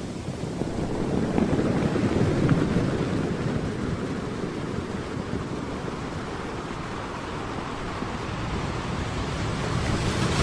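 Sea surf washing onto the beach, with wind rushing over the microphone; the wash swells and eases, growing louder again near the end.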